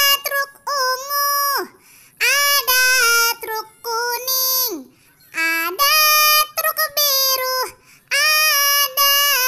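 A high-pitched singing voice in short phrases of held notes, with brief gaps between phrases.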